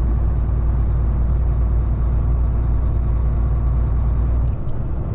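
Heavy truck's diesel engine and road noise heard from inside the cab: a steady low drone. The deepest rumble drops away briefly near the end.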